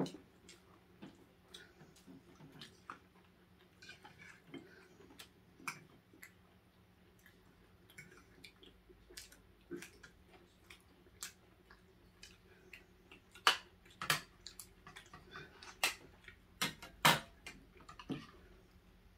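Eating sounds: irregular chewing clicks and mouth smacks, with a cluster of sharper, louder ones in the last few seconds.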